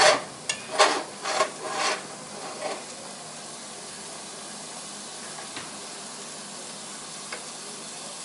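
Ground turkey burger patties sizzling steadily in a nonstick skillet. Several short, louder handling noises come in the first two seconds, before the sizzle carries on alone.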